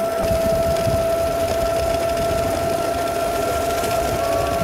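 Battery-powered motor on a home-built motorised kick scooter whining at a steady, unchanging pitch while cruising, over a rough low rumble of wind and road.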